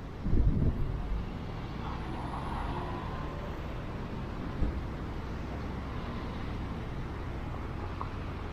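City street traffic: a steady low rumble of passing cars and buses. A few loud low thumps come in the first second, and there is a single short knock about halfway through.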